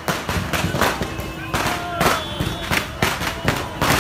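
Firecrackers going off in a rapid, irregular string of sharp cracks, several a second, over the voices of a street crowd.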